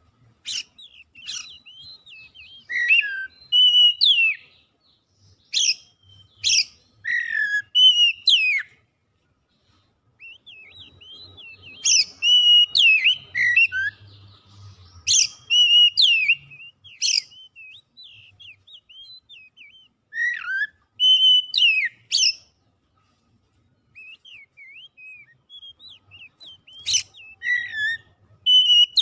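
Oriental magpie-robin (kacer) singing: varied whistled phrases of sharp rising and falling notes, in bursts separated by short pauses.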